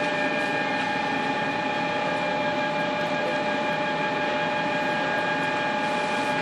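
Steady hum of running machinery: a constant drone with several held tones over an even noise, unchanging throughout.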